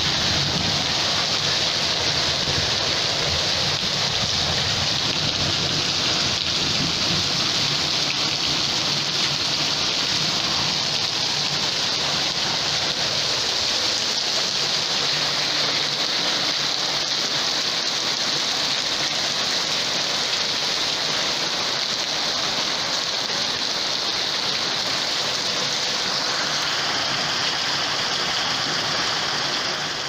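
Heavy downpour mixed with hail: a dense, steady hiss of rain and hailstones pelting the ground and nearby surfaces.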